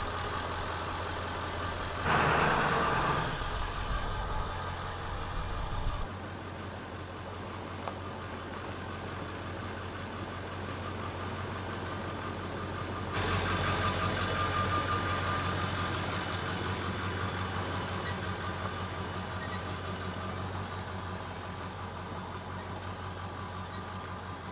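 Ford 7.3 Powerstroke V8 turbo-diesel truck engine running with a steady low drone as the truck drives slowly along a dirt road. It swells louder briefly about two seconds in and again from about halfway.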